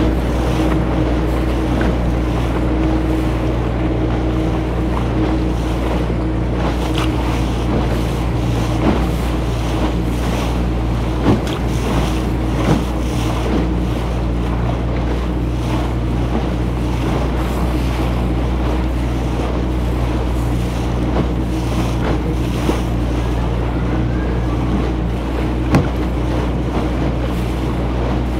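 A small boat's motor running steadily, with water rushing and splashing along the hull and wind buffeting the microphone. A few brief light knocks come through now and then.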